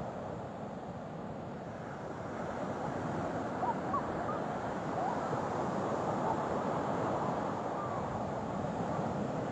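Ocean water sloshing and surging with steady surf noise, with a few faint short chirp-like whistles around the middle.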